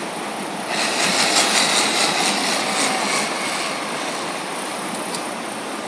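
An engine running steadily. It grows louder and harsher from just under a second in to about three seconds in, then settles back to a steady run.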